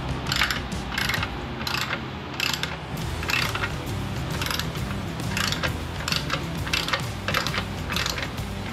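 Hand socket ratchet clicking in short repeated strokes, roughly two bursts of clicks a second, as bolts are turned while mounting a slip-on exhaust.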